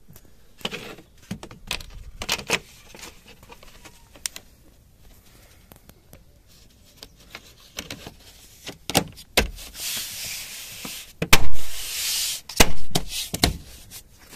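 Plastic interior trim panels of a car being handled and clipped back into place: scattered clicks and knocks, a rubbing scrape from about ten to twelve seconds in, and a few loud knocks near the end.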